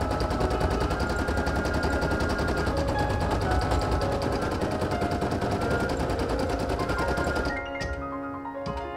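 Brother PE800 embroidery machine stitching at speed, its needle bar giving a rapid, even mechanical rattle that cuts off near the end.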